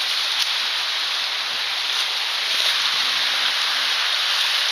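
Waterfall rushing: a steady, loud, even hiss of falling water, heard up close at the brink.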